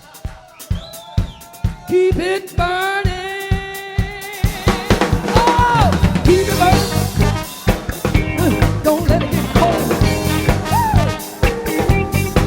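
Live funk-soul band music: a drum kit beat alone at first, long held notes joining about two seconds in, then the full band with bass coming in about four and a half seconds in.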